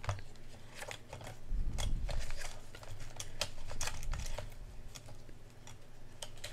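Clear plastic pockets of a ring-binder cash wallet being flipped and handled, with bills inside: a string of irregular crisp clicks and crinkles.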